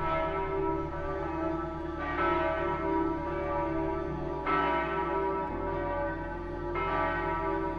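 A church bell tolling, struck about four times roughly two seconds apart, each stroke ringing on into the next.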